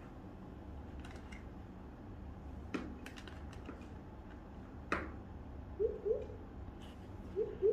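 Plastic tongs clicking and tapping against a plastic tray and table top while pom-poms are picked up: a few light clicks about three seconds in and a sharper knock about five seconds in. Near the end come a few short rising squeaks.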